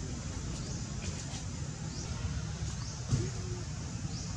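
Outdoor ambience: a steady low rumble with short, high rising chirps repeating every second or so. About three seconds in comes a brief sudden sound, followed by a short low call.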